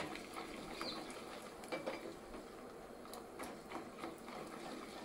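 Slotted wooden spatula stirring and scraping in a small kadai, with irregular light knocks against the pan, while peanuts, dals and dried red chillies fry in oil with a faint sizzle.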